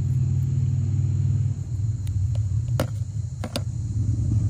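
A steady low rumble throughout. A few sharp clicks about halfway through, as scissors are laid down on a plastic bucket lid.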